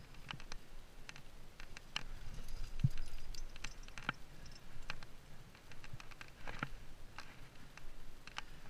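Scattered light clicks and scuffs of a rock climber on the move: hands and feet on the rock and metal gear clinking at the harness, irregular and a few to the second. One duller knock about three seconds in.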